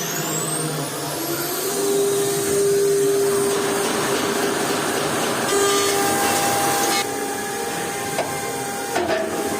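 An aluminium profile CNC machining center running, giving a steady mechanical noise with a held mid-pitched tone. A second, higher tone joins about halfway through.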